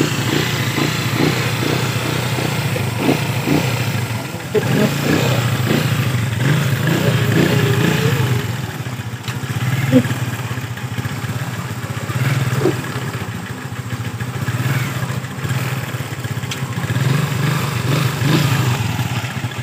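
Single-cylinder Rusi motorcycle engine, freshly swapped into a Motorstar Star-X, running on its first test, the engine speed rising and easing a few times. It runs quietly and smoothly.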